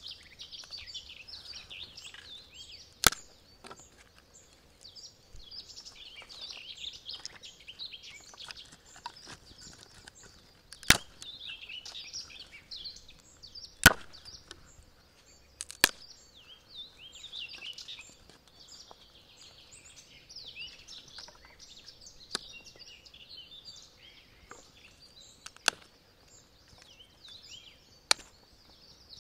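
Wood being chopped or split: about seven sharp knocks at irregular gaps of a few seconds, over steady high-pitched birdsong.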